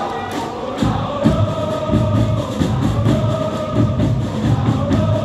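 Football supporters' section singing a chant together in unison, the loud massed voices holding long notes. About a second in, a drum beat comes in under the singing and keeps a steady rhythm of two or three beats a second.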